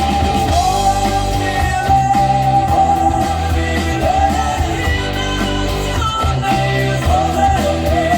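Rock music, with a wavering lead melody over steady low bass notes.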